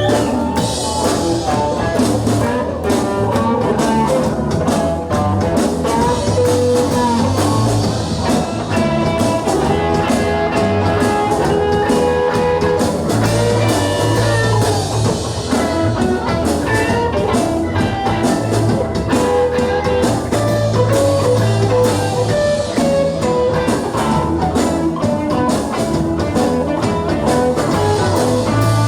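Live blues-rock band playing an instrumental break, with lead guitar over bass and drum kit.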